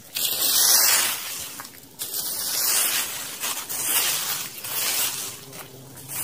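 Garden rake scraping and rustling through dry leaves, twigs and dirt in several long strokes, one after another.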